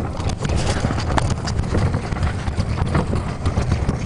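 Dog sledge running fast over hard, uneven snow: a dense, irregular rattle of knocks and scrapes from the sledge and its runners over a low rumble.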